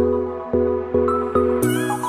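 Background music with a steady bouncy beat, a new note about every half second; a brighter, higher layer comes in near the end.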